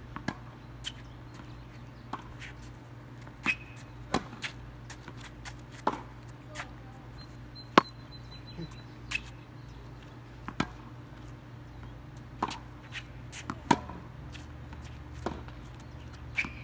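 Tennis rally on a hard court: sharp pops of the racket strings striking the ball and the ball bouncing on the court, every second or so, some close and loud, others distant and faint.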